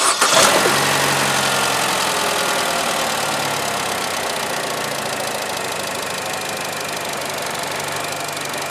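The 2015 Chevy Cruze's 1.4-litre turbocharged inline-four Ecotec engine starts up with a brief flare at the very beginning. It then idles steadily, its level slowly easing down as the idle settles.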